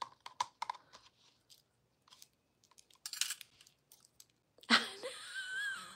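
Light clicks and small metallic rattles as stacked metal bracelets are handled and slid off a cone-shaped bracelet holder. Near the end comes a breathy hiss with a wavering tone.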